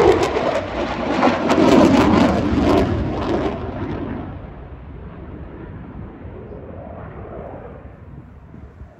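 Eurofighter Typhoon's twin Eurojet EJ200 turbofans in afterburner: a loud crackling roar that fades about four seconds in to a fainter rumble as the jet draws away.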